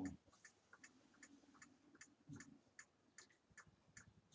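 Faint, steady ticking of a wall clock, about two to three ticks a second, in a quiet room, with a brief soft low sound right at the start.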